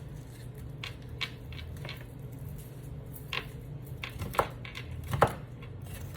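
A kitchen knife cutting a green bell pepper on a cutting board: a few scattered knocks and taps of the blade on the board, the loudest about five seconds in, over a steady low hum.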